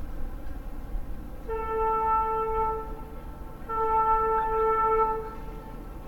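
The Diamond Princess's ship's whistle sounds two steady blasts of about a second and a half each at one unchanging pitch, with a third starting right at the end. This is the whistle signal given as the harbour pilot leaves the ship.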